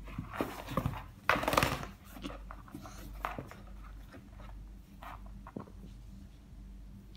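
Two cats wrestling inside a cardboard box: paws and bodies scuffling and scraping against the cardboard in scattered knocks and scratches, with one loud rush of noise lasting about half a second, about a second and a half in.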